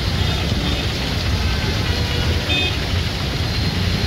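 Steady rush of a roundabout fountain's vertical water jets splashing into its basin, mixed with a low rumble of street traffic. A few brief faint high tones sound about half a second in and again around two and a half seconds in.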